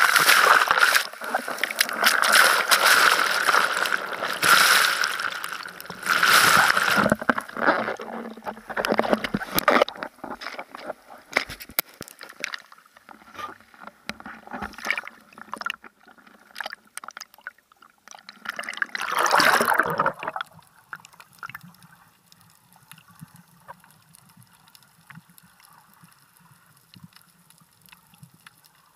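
Seawater splashing and sloshing against a 360 camera held at the waterline of a bodyboard, the lens dipping partly under the surface. It is loud and choppy for the first several seconds, has one brief loud rush of water about two-thirds through, and then turns to quieter lapping.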